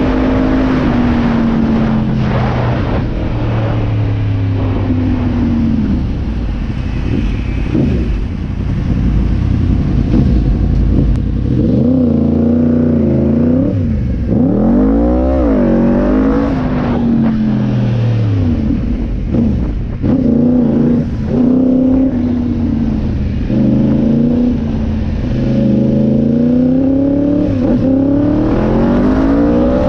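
A 1000cc Yamaha R1 inline-four engine in a quad, running through traffic. Its pitch rises and falls as it accelerates, shifts and eases off, with several quick revs up and down around the middle.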